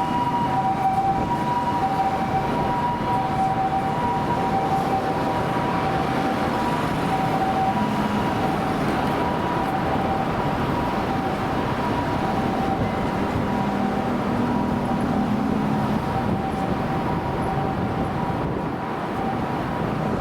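Japanese ambulance's two-tone hi-lo siren sounding on an emergency run, over steady traffic and engine noise; the siren grows fainter in the second half.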